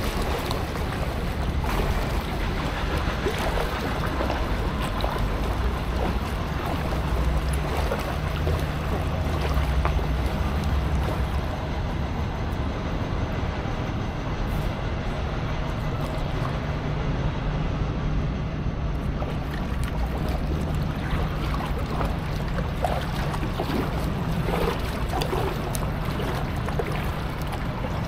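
Paddling a packraft: small splashes of paddle strokes and water moving against the raft, over a steady low hum.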